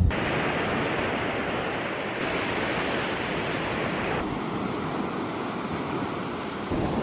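Sea surf breaking and washing up a pebble beach: a steady rush of waves across a few short clips joined together, with the sound changing abruptly at each cut.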